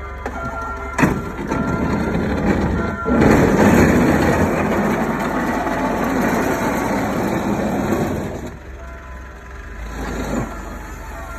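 Snoway snow plow's electric hydraulic pump running for about five seconds as the blade swings to a new angle, with a sharp click about a second in and a short second run of the pump near the end.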